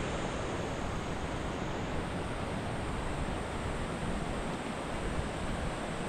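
Mountain stream flowing over rocks and a small cascade: a steady, even rush of water.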